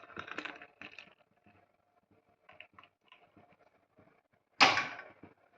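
Kitchen utensils being handled: a few faint clicks and taps, then one sudden loud clatter about four and a half seconds in that fades over about half a second.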